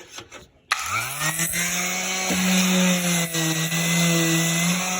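Electric "jitterbug" palm sander, fitted with 100-grit paper, switched on about a second in: its motor spins up with a quick rising whine, then runs steadily.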